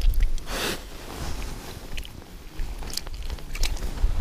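Close handling noise as an angler unhooks and sorts fish at an ice hole: rustling of a winter jacket sleeve and light crunching, with a soft swish about half a second in and a few short, sharp clicks after it.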